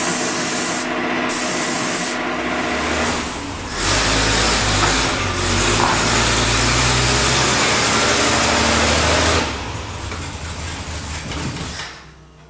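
A compressed-air paint spray gun hisses in short bursts. About four seconds in it gives way to a Ford Granada engine running in a GT40 replica as the car moves off under its own power for the first time. The engine sound eases after about nine seconds and dies away near the end.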